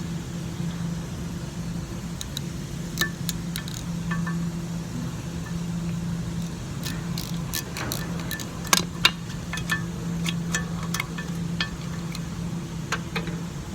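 Scattered metallic clicks and clinks of a hand wrench or socket working on the 12 mm bolt of a car's front wheel ABS sensor, thickest and loudest about two-thirds of the way through, over a steady low hum.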